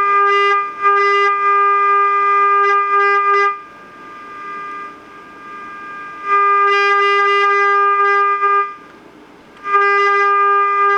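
Becker Europa car radio's speaker sounding the signal generator's steady, buzzy test tone, which cuts out twice for a second or two and comes back. The 10.7 MHz IF signal from a lead just laid on the board comes through strongly, a sign that the radio's IF stage is working.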